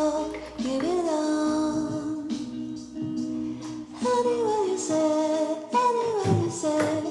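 Background music: a song with a woman singing long notes that slide from one pitch to the next.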